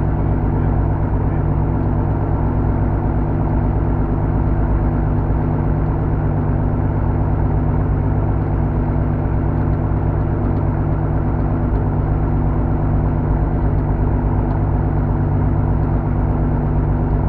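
UL Power aircraft engine and propeller of a Van's RV-7 idling steadily on the ground, heard from inside the cockpit.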